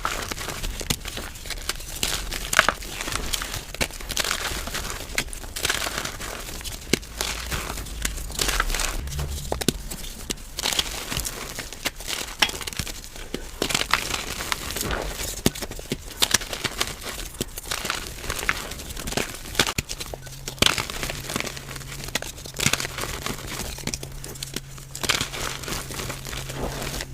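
Blocks of chalky powder being crushed by hand, giving dense, irregular crackling and crunching. The clip is played back at double speed.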